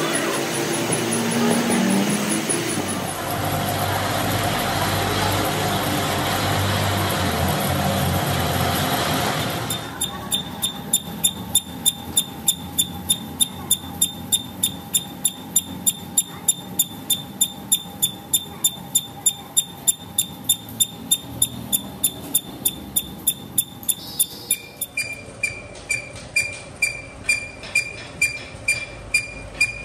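Metal lathe turning a large crankshaft. First a dense, steady machining noise, then from about a third of the way in a sharp ringing tick about twice a second as the cutting tool meets the offset crank throw on each turn, an interrupted cut.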